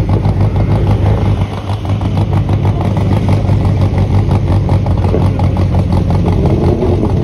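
A vintage racing car's engine running at low revs as the open car rolls slowly along, with a loud, steady pulsing exhaust beat.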